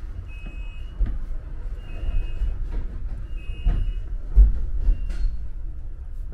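Tram interior: the low rumble of the car running, with a short high beep sounding three times about a second and a half apart, and a few knocks, the loudest about four seconds in.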